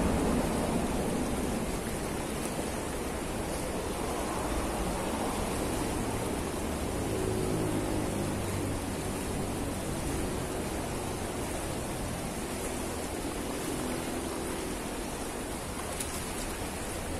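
Fast, shallow river water rushing over a choppy stretch, a steady hiss of flowing water.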